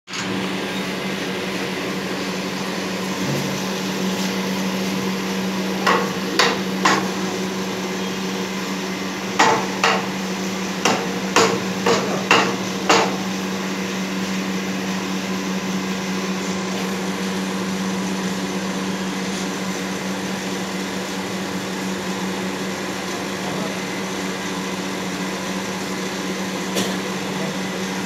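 Steady low machine hum, with a string of sharp knocks: three about six seconds in, then about seven more in quick succession a few seconds later.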